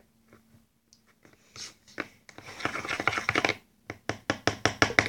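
A small brush stirring a thick homemade lipstick mixture in a cream-jar lid, scraping and tapping against the lid's sides. Faint scattered taps at first, then quick, steady scraping strokes from about two seconds in.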